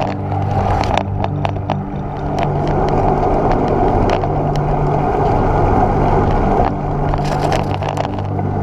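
Road noise from a bicycle ridden on a rough country lane: wind rushing over the mounted camera and tyres rolling on broken tarmac, with scattered sharp clicks and knocks from bumps.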